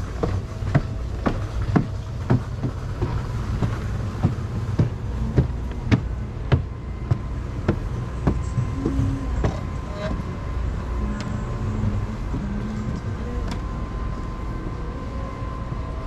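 Footsteps climbing stairs, about two firm steps a second, then softer and less distinct after about seven seconds as the walking levels out. A steady low rumble, wind on the microphone, runs under them.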